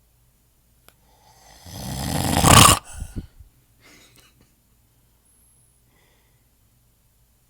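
A man snoring in his sleep: one long, harsh snore that builds in loudness over about a second and a half and cuts off abruptly, followed by a short trailing breath, then quiet.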